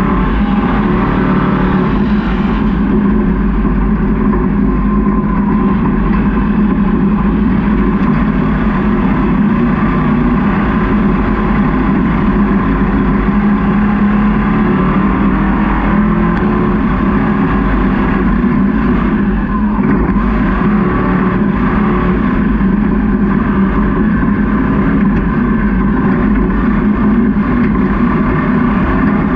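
Off-road race truck's engine running, a steady loud drone with little change in pitch.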